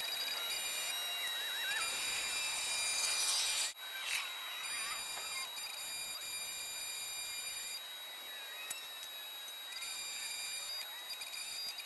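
Arc welding: a steady crackling hiss as steel tubing is welded onto a propane tank, with a brief break about four seconds in.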